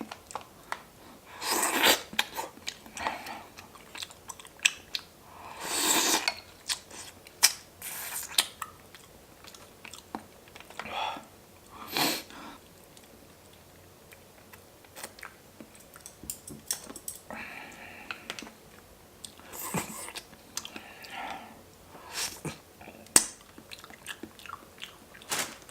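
Close-miked eating: chewing and crunching mouthfuls of food, with irregular clicks and several louder bursts.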